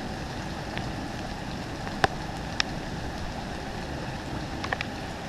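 Steady outdoor hiss, even across the range, with a few faint ticks scattered through it and one short high chirp about two and a half seconds in.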